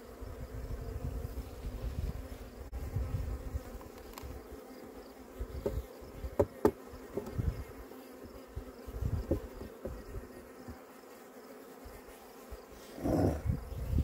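Honeybees humming steadily around an opened wooden hive, with a low rumble and a few sharp knocks about six to nine seconds in as the hive's outer cover is put on.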